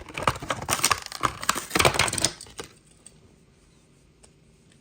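Hot Wheels blister pack being torn open by hand: a quick run of crackling and tearing of plastic and cardboard for about two and a half seconds, then a few light ticks.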